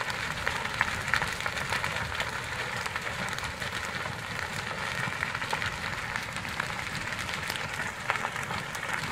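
A large building fire crackling, a dense steady crackle with sharper pops scattered through it. A few louder pops stand out, two about a second in and one near the end.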